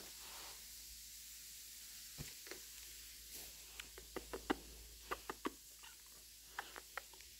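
Faint, irregular clicks and taps: two single knocks, then about a dozen short clicks in the second half.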